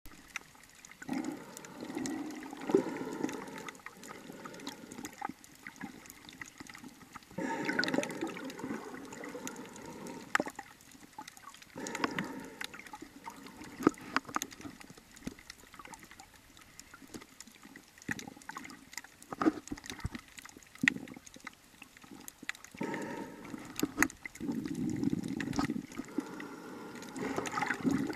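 Water heard through a submerged camera while snorkelling: muffled gurgling and sloshing that comes in surges a few seconds long, with scattered sharp clicks in between.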